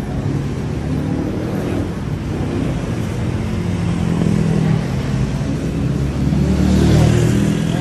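Motor vehicle traffic: engines running steadily, with one passing louder about seven seconds in.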